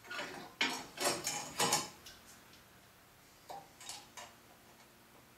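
Metal clinks and knocks as the wheel guard of a LIP 515 surface grinder is handled: a quick cluster of them in the first two seconds, then a few lighter ones about three and a half seconds in.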